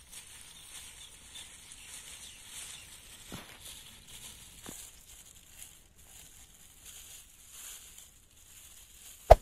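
Faint crinkling of a thin plastic bag being handled, with a couple of soft taps and one sharp click near the end, over a steady faint hiss.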